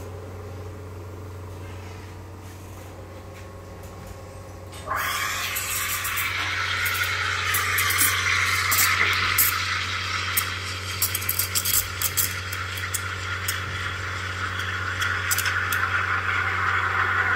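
Espresso machine steam wand steaming milk in a stainless steel pitcher for a latte. The steam comes on with a sudden loud hiss about five seconds in and runs steadily, with many small crackles over it, above a steady low hum.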